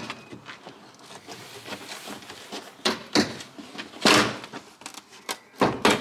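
Irregular sharp knocks and clunks, about six of them, the loudest and longest about four seconds in.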